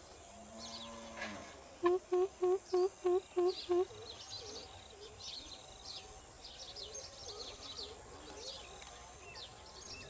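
Greater coucal calling: a quick series of seven deep, even hoots about two seconds in, followed by softer hoots for several seconds. Small birds chirp in the background.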